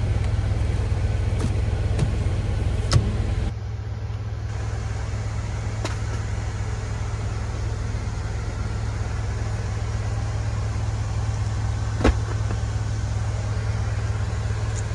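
Steady low drone of an idling semi-truck, heard from inside the sleeper cab. Two sharp knocks come about three seconds in and again near twelve seconds, as things are moved around in the cab.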